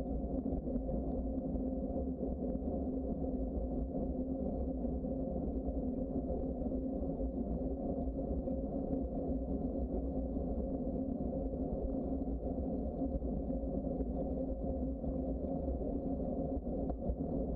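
Bicycle riding along a trail: steady rolling noise with a constant low hum and no change in pace.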